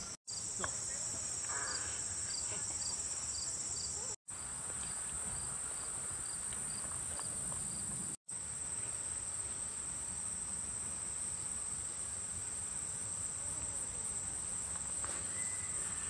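A summer meadow insect chorus: crickets keep up a steady high trill, and a second insect chirps about twice a second through the first half. The sound drops out briefly three times.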